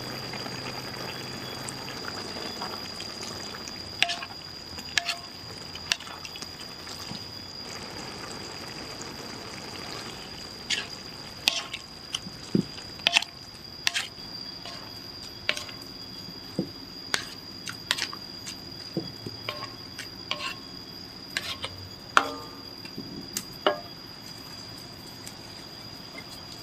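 Cassava leaves in a coconut-milk sauce bubbling in an aluminium wok, then a ladle stirring the greens and knocking and scraping against the wok, giving sharp clicks that come thick and fast through the second half.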